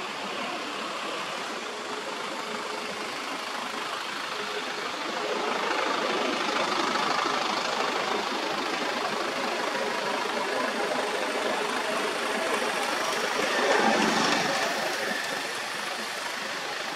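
Steady background noise of a running engine, growing louder and peaking about fourteen seconds in before easing off.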